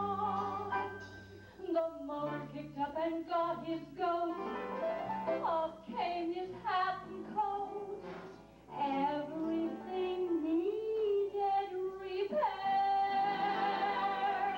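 A banjo band playing live: a lead melody line that slides and bends between notes over a steady bass line, ending in a long held note near the end.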